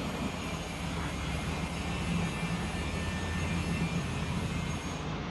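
Steady low machine hum, like a motor or fan running, with a light knock right at the start.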